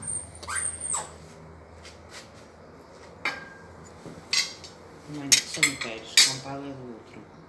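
Table knife and fork clinking and scraping against a dinner plate while cutting meat: several sharp clinks spread out, one ringing briefly.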